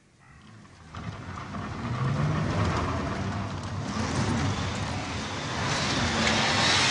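BMW E30 engine revving hard as the car drives toward the camera, pitch rising and falling with the throttle. It gets louder about a second in, and a hiss of tyres and loose dirt builds near the end.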